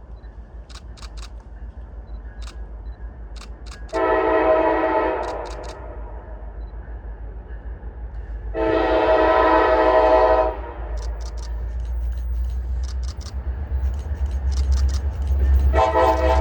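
Norfolk Southern freight locomotive's multi-chime air horn sounding three blasts, each a chord of several tones: a short one about four seconds in, a longer one of about two seconds near the middle, and a third starting near the end. Under it the locomotive's diesel engine rumbles, growing louder as the train approaches, and quick runs of camera shutter clicks fall between the blasts.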